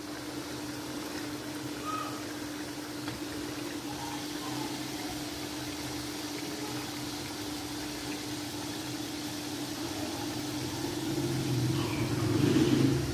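Chicken and vegetables sizzling in oil in an aluminium pot, with a steady low hum underneath. Near the end it swells louder as a plateful of chopped vegetables is tipped into the pot.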